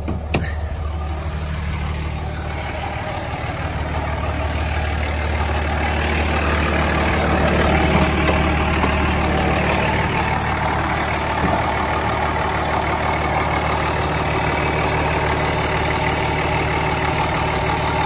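2004 Dodge Ram 3500's 5.9 Cummins 24-valve turbo-diesel inline-six idling steadily. There is a sharp click about half a second in, and the engine grows louder from about four seconds in as the open engine bay is reached.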